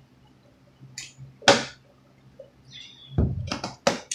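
Clear plastic food container being handled: a few sharp plastic crackles and clicks, the loudest about a second and a half in, with a quick run of them near the end.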